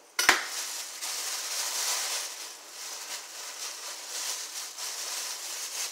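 Thin plastic grocery bag rustling and crinkling as it is gathered up and handled, after a single click near the start.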